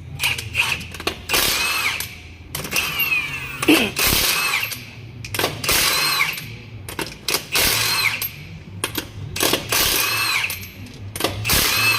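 A power tool run in short repeated bursts, each half a second to a second long, with a squealing whine inside each burst.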